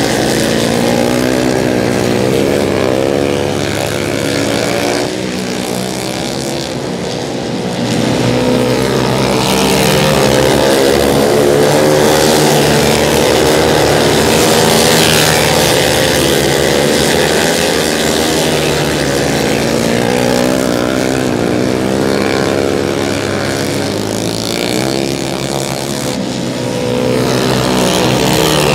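Several flat-track racing motorcycles running at race pace, their overlapping engine notes rising and falling in pitch as the bikes circle the dirt oval. The sound is loudest from about ten seconds in, and swells again near the end as a bike passes close.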